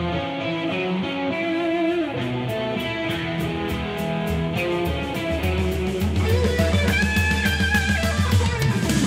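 Rock music: guitar over a steady drum beat.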